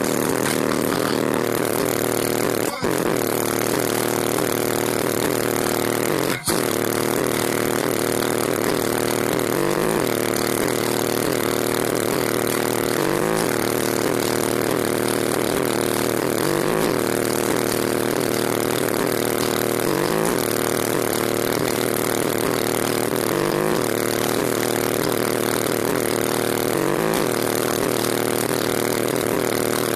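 Car subwoofer system playing a bass-heavy song at full volume, heard as a dense, steady drone with a rising sweep every three to four seconds. Under it the engine is held at about 1800 RPM to feed the system from a 240-amp high-output alternator, while the voltage sags to about 13.2 V under the load.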